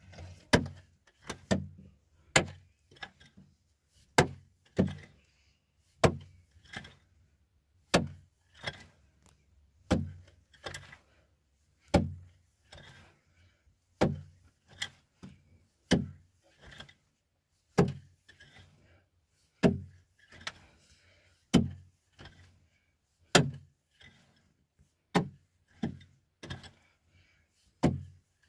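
A steady rhythm of sharp knocks or strikes, usually two close together, repeated about every two seconds.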